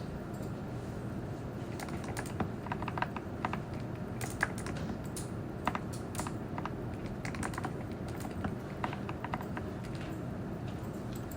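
Typing on a computer keyboard: irregular runs of soft keystroke clicks starting about two seconds in and thinning out near the end, over a steady low room hum.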